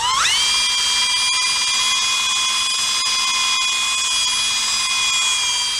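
Electric drill spinning up quickly and running at a steady high whine, turning against a carburetor part with valve lapping compound to polish it.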